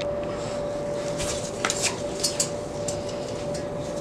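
Metal hand tool clinking against the exhaust manifold and turbo hardware of a Nissan SR20DET engine as a fastener at the back is worked loose: a few sharp, irregular clinks about a second to three seconds in, over a steady hum.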